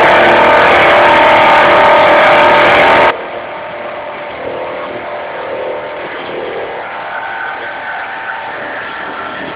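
Car engine held at high revs during a smoky burnout, very loud and steady in pitch. About three seconds in it cuts off abruptly to a quieter, duller recording of engine noise.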